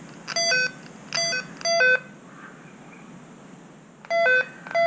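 Power probe circuit tester beeping in pulses as it picks up the flashing right turn signal circuit. Three short beeps, a pause of about two seconds, then the beeps resume near the end.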